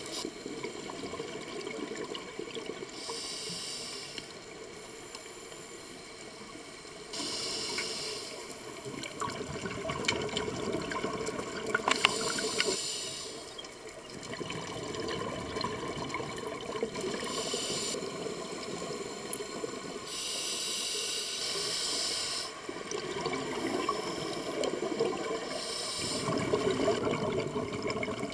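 Scuba diver breathing through a regulator underwater, heard through an underwater camera housing. Hissing inhalations about one to two seconds long come every four or five seconds, between rumbling, bubbling exhalations.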